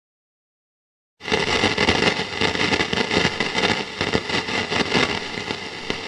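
Silence, then about a second in a vintage car engine starts up in the recording and runs roughly, with a dense, irregular crackle of sharp clicks over a noisy rumble.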